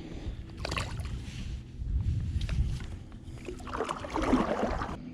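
Water splashing and sloshing at a fishing kayak, with two noisy bursts: a short one under a second in and a longer, louder one near the end. Low wind rumble on the microphone sits underneath.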